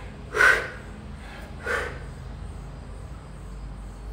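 Two heavy, breathy exhalations from a man out of breath after a hard workout circuit, the first louder, about half a second in and a second and a half in.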